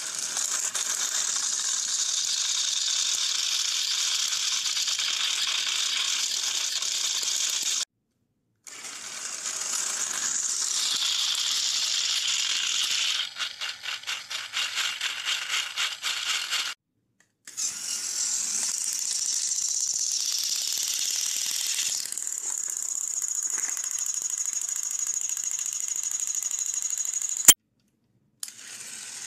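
Small electric motors and plastic gearboxes of battery-powered Thomas & Friends toy trains running, a steady high rattling buzz. In the middle it pulses a few times a second, and a sharp click comes near the end; the sound stops and restarts three times.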